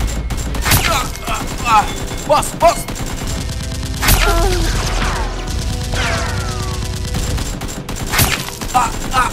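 Gunfire sound effects dubbed over Nerf blasters being fired: several separate shots and bursts, with shouting and background music underneath.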